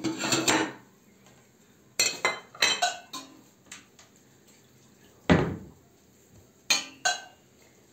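Scattered clinks and knocks of a metal utensil against a small stainless steel pot, a few at a time with short quiet gaps between them. The loudest knock comes about five seconds in.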